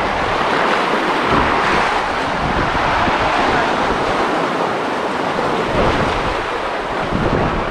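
Small sea waves breaking and washing over low flat shore rocks in a steady, swelling rush, with wind rumbling on the microphone.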